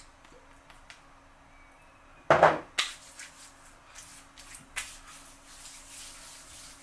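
Hand-handling noises while moisturising after a shave: a loud, short rub about two and a half seconds in and a second just after, then soft rustles and light clicks.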